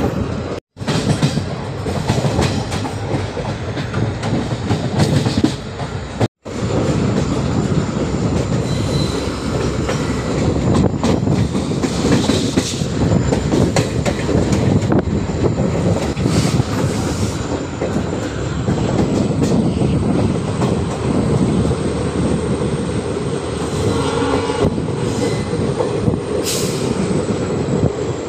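Express passenger train running at speed: a steady rumble of wheels on rails with rattling clatter over joints and points, and a faint high wheel squeal. The sound cuts out twice very briefly near the start.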